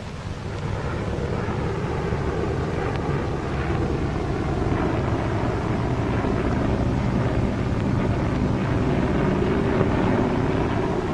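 Propeller aircraft engines droning steadily with a windy rush. The drone swells a little in the first second.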